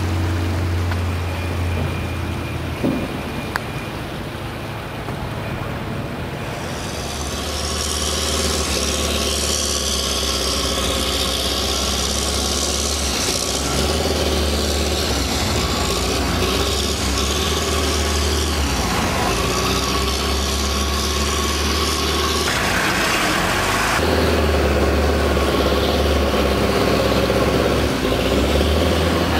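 Steady low rumble, joined about seven seconds in by a louder, steady noise of vehicle engines and road traffic, from trucks and heavy machinery such as an excavator.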